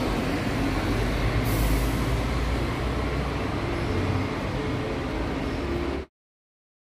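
City street traffic noise: a steady, loud rumble of passing vehicles with a brief hiss about one and a half seconds in. It cuts off abruptly about six seconds in.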